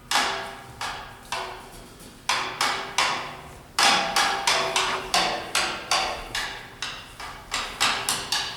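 Sharp struck percussion hits, each ringing briefly. A few scattered strikes come first, then from about four seconds in a steady run of about three a second.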